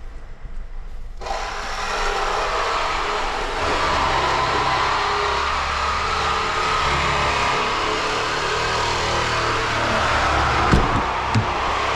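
A vehicle's engine sound starts abruptly about a second in and runs steadily, growing fuller in the low end a few seconds later. Two sharp knocks come near the end.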